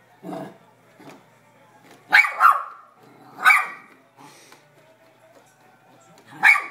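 Basenji puppy barking at a vacuum cleaner in short, sharp barks. There are a couple of soft ones at first, then a loud double bark about two seconds in, another a second later, and one more near the end.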